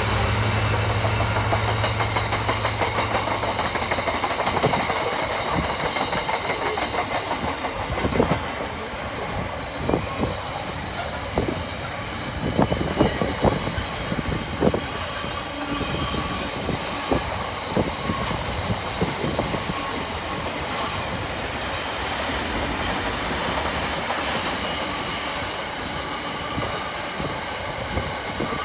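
Freightliner Class 66 diesel locomotive hauling a container freight train: its two-stroke V12 engine hum fades in the first few seconds as it passes, then the container wagons rumble by, wheels clacking over rail joints in irregular clusters, thickest mid-way.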